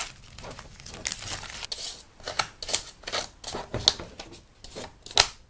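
Blue painter's tape being peeled off a foam seat base and the cotton cover being cut back, heard as a string of short, irregular tearing and cutting sounds.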